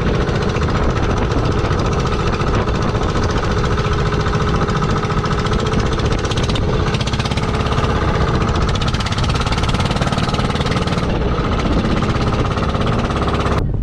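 Engine of a motorized outrigger boat (bangka) running steadily under way, a loud rapid clatter that cuts off near the end.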